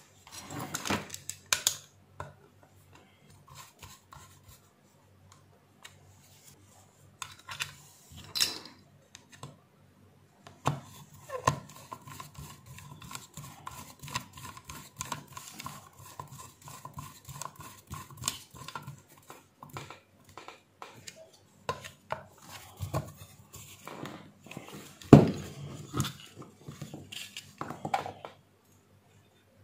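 Hands and a screwdriver working on the metal soleplate and thermostat contact set of an electric steam iron: scattered clicks, scrapes and light metal knocks, with the loudest knock near the end.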